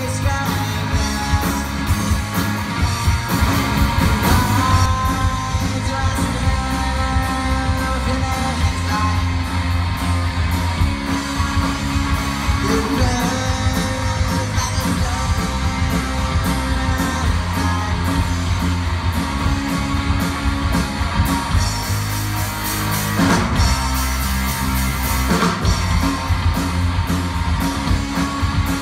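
Pop-punk band playing live: electric guitar, electric bass and drum kit, with a sung lead vocal over a steady drum beat.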